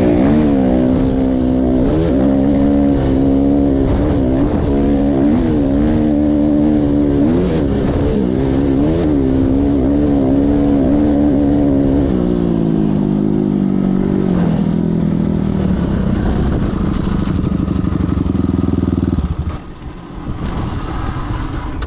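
Dirt bike engine being ridden hard, its pitch repeatedly rising and falling as the throttle is worked, then holding steadier at lower revs before dropping off sharply near the end.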